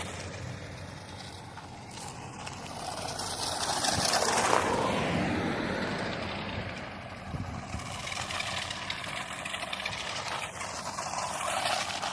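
Battery-powered K'nex RC truck's motor and gears running as it drives over rough dirt, the pitch rising and falling with the throttle.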